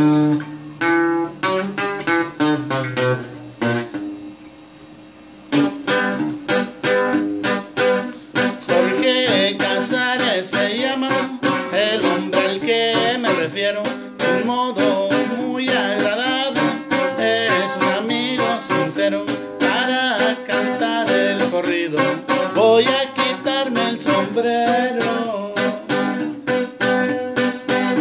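Bajo quinto, the Mexican twelve-string bass guitar, played solo as a corrido: a few plucked chords, a short pause about four seconds in, then a steady, dense run of plucked melody and bass notes.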